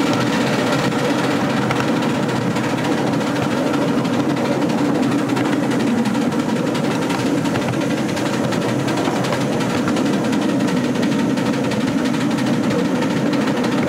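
Miniature steam locomotive hauling a ride-on train, with a steady running noise of the engine and its wheels on the track.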